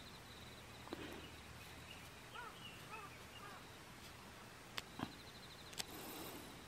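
Quiet outdoor background with a bird giving several short chirps, a faint high insect trill, and a few sharp light clicks of steel wire rope and its aluminium sleeve being handled, the loudest around the fifth second.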